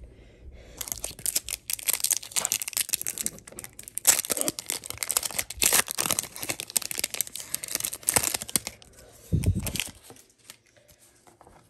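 Foil wrapper of a Pokémon trading-card booster pack being torn open and crinkled by hand: a dense, crackling rustle of foil lasting about eight seconds. A brief muffled bump follows about nine seconds in.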